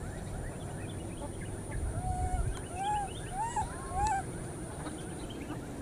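A baby macaque giving four short coo calls, each rising then falling in pitch, one after another about two seconds in.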